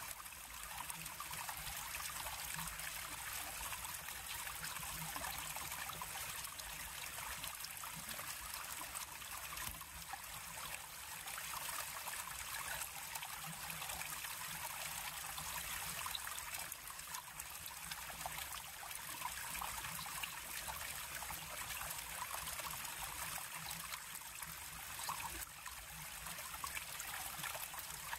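River water flowing and trickling steadily, a continuous bright splashing hiss without pause.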